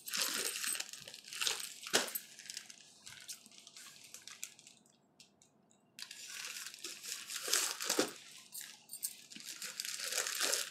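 Plastic courier mailer bag crinkling and rustling in the hands as it is handled and opened, with a brief near-silent gap about halfway.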